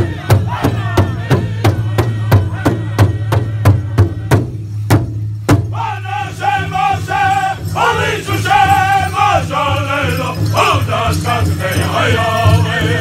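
Powwow drum group: a large hand drum is struck in a fast, steady beat of about three to four beats a second under the singers. About five and a half seconds in, the drumming stops and the voices carry on in high-pitched group singing without the drum.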